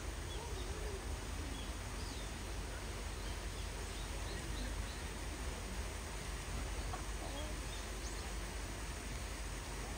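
Steady outdoor background noise with a low rumble, and faint short bird chirps scattered through it.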